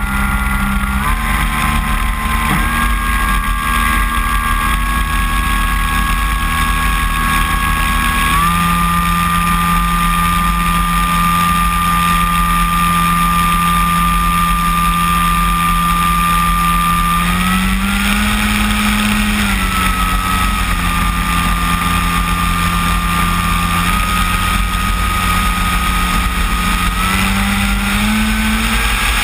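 Electric motor and propeller of a radio-controlled Cessna 185 floatplane model, close up from on board while taxiing on water: a steady whine whose pitch steps up about a third of the way in, rises and falls back around two-thirds through, and climbs again near the end as the throttle changes.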